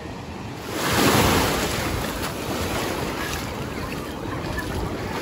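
Black Sea surf: a wave breaks about a second in and washes out slowly, over steady sea noise, with wind rumbling on the microphone.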